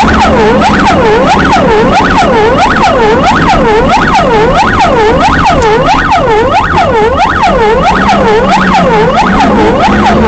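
Electronic emergency-vehicle siren on a fast yelp, its pitch swooping down and back up about twice a second. It is heard loud from inside the vehicle's own cab, over a steady low hum.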